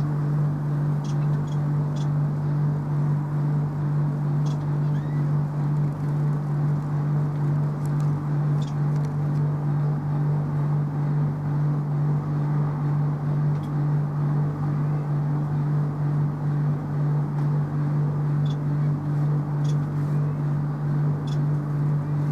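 A motor running steadily with a loud, low, even hum and a slight regular pulsing.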